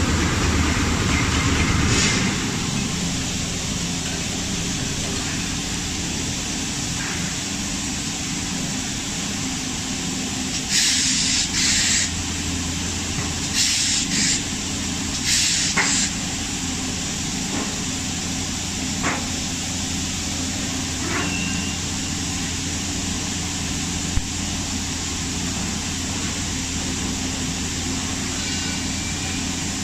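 Pneumatic jolt squeeze moulding machine running with a steady hum, with short blasts of compressed air hissing out about eleven seconds in and twice more over the next five seconds.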